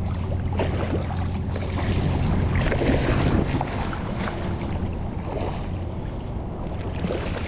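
Wind buffeting the microphone over a steady low hum, with scattered faint ticks.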